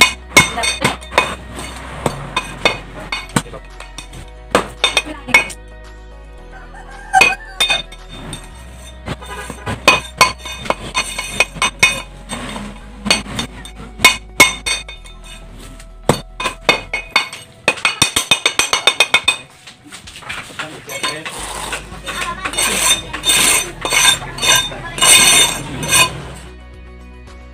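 Steel trowel clinking and scraping against a steel concrete-block mould as moist sand-cement mix is scooped in and tamped down. There is a quick run of sharp taps about two-thirds of the way in, and a stretch of scraping near the end.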